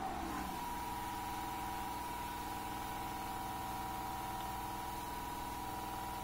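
Water pump of a medium-pressure misting machine running steadily, a constant motor hum with a high tone in it that settles about half a second in. The machine is running normally with enough inlet water pressure.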